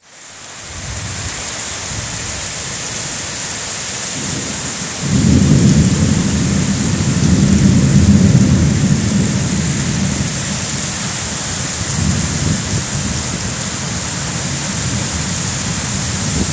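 Heavy rainstorm: a downpour pouring onto the ground and trees in gusty wind. A deep rumble swells in about five seconds in and stays strong for several seconds.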